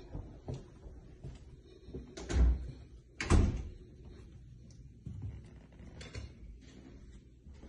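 Glass-paned interior French door being opened: two sharp thumps a little under a second apart, with smaller clicks and knocks of handling around them.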